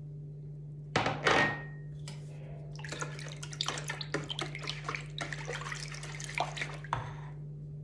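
A short clink with a brief ring about a second in, then a wire balloon whisk beating eggs into milk and oil in a plastic bowl: rapid clicking and splashing of the liquid for several seconds.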